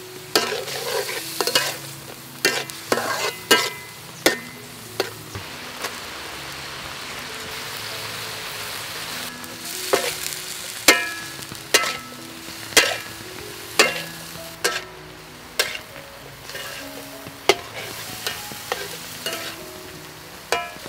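Metal spatula striking and scraping a steel wok at irregular intervals, each strike ringing briefly, as shrimp and wing beans are stir-fried over steady sizzling. In the middle the strikes pause and only the sizzle is heard for a few seconds.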